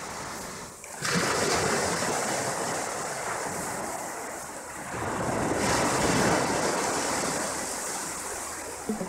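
Small waves breaking and washing up a sandy beach: a steady rush of surf that swells about a second in and again about five seconds in.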